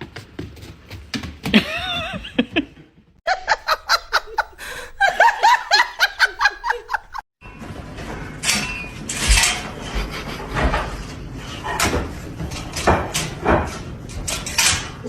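A person laughing hard in quick repeated bursts for several seconds, among other noisy sounds with a few low thumps.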